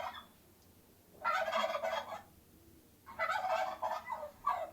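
Turkey gobbling: two rattling gobbles about a second long each, a second or so apart, with a shorter one starting near the end.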